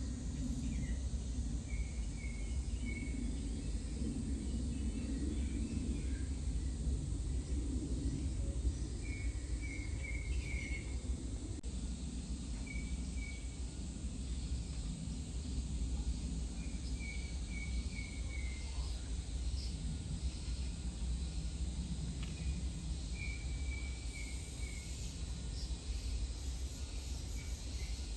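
Steady low outdoor background rumble, with a bird chirping in short runs of three or four quick notes that repeat every few seconds.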